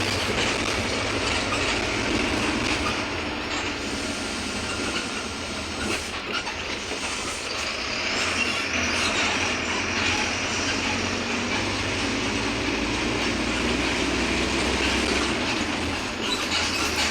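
Mercedes-Benz OF-1721 BlueTec 5 city bus on the move: its front-mounted diesel engine running steadily under the continuous noise of the moving bus.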